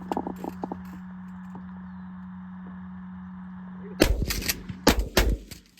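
A volley of shotgun shots from several hunters firing at pigeons: about four blasts in quick succession starting about four seconds in, over a steady low hum.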